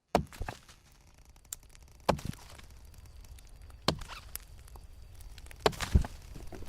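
Sharp snaps and knocks of wood at a campfire, about seven of them at irregular intervals, over a low steady rumble.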